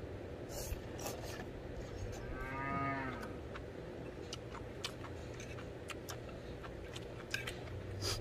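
A cow mooing once in the distance: a single drawn-out call of about a second that rises and falls in pitch.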